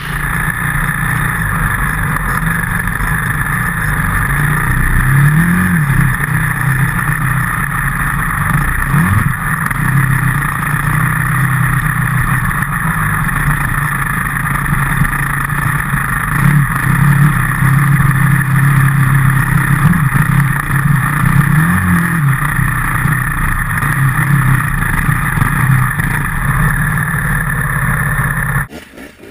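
Enduro dirt bike engine heard close from an on-board camera while riding, its pitch rising and falling repeatedly as the throttle is worked. The sound cuts off suddenly just before the end.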